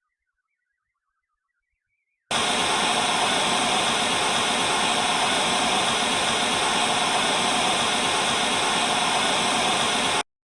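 Loud, steady static-like hiss that switches on abruptly about two seconds in and cuts off suddenly near the end.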